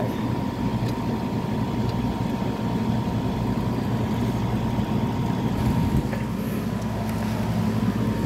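GE window air conditioner running, its fan blowing and motor giving a steady low hum with a thin, constant whine above it.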